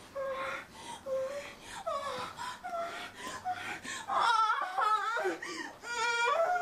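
A man's wordless high-pitched whimpering and moaning: a run of short whining cries that bend up and down in pitch, louder from about four seconds in.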